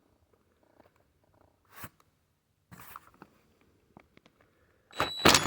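Hand work on an Echo 2511T chainsaw's clutch: scattered clicks and two short scrapes of tool on metal, then a louder short burst near the end as the clutch is worked loose.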